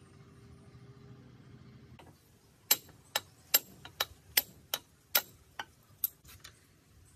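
A steel tool clicking and tapping against the rusty parts inside a Mitsubishi sewing machine head: about ten sharp metallic taps over four seconds, starting nearly three seconds in.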